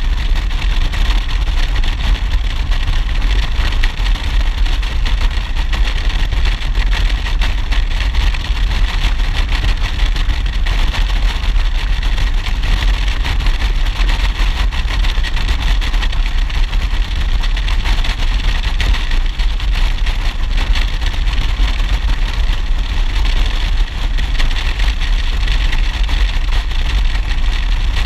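Motorcycle cruising steadily at road speed: its engine runs under constant wind rush on a helmet-mounted microphone, with no change in pace.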